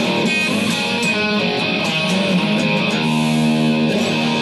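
Music: a guitar playing held, ringing chords that change every second or so.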